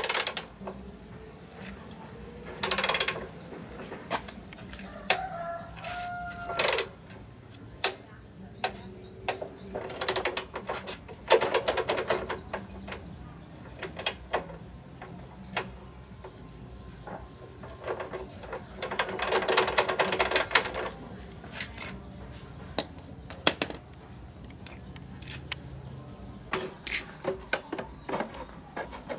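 Hand tools clicking and clinking on a motorbike's metal frame as parts are worked on, with scattered knocks and a few longer runs of rapid clicks. Birds chirp now and then in the background.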